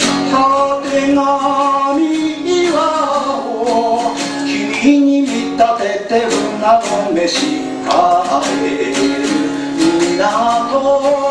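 A man singing a song to acoustic guitar accompaniment.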